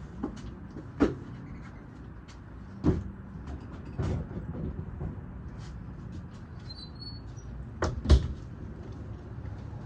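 A handful of sharp knocks and thumps, about one a second at first, then a close pair near the end that is the loudest, over a low steady hum.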